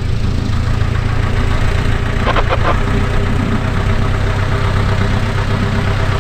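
Cessna F172M Skyhawk's four-cylinder Lycoming O-320 engine running at low taxi power, a steady idle hum as the plane taxis with its propeller turning.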